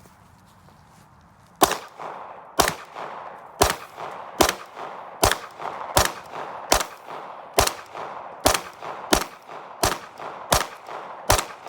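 Glock 19 9mm pistol firing a steady string of about thirteen single shots, roughly one every 0.8 seconds, starting about a second and a half in.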